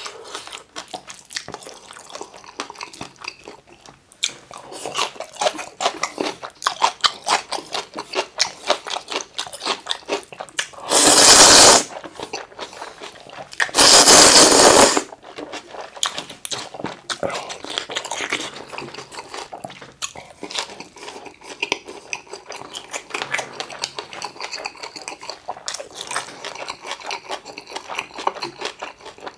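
Close-miked chewing and crunching of food, with two loud slurps of curry ramen noodles about 11 and 14 seconds in.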